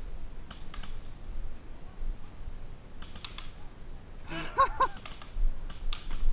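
Scattered clusters of faint clicks and pops from paintball markers firing across the field, with a brief distant shout a little past the middle.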